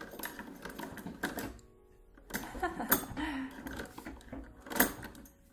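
A 1923 Singer sewing machine, worked without electricity, clicking and clacking irregularly through a few slow stitches. There are several sharp knocks, the loudest about three seconds in and near the end.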